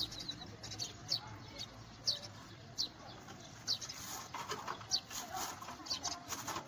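Small birds chirping: a string of short, quick downward chirps, repeated every half second or so.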